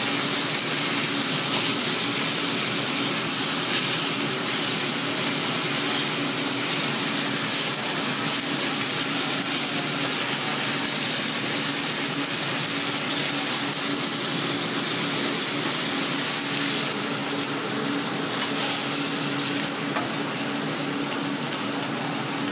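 Meat frying in hot fat in a stainless steel sauté pan over a gas flame: a steady, loud sizzling hiss that eases slightly near the end. A steady low hum runs underneath.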